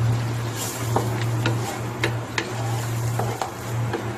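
Wooden spoon stirring a thin, watery spice paste in a pan, with irregular sharp clicks as the spoon knocks and scrapes against the pan, over a steady low hum.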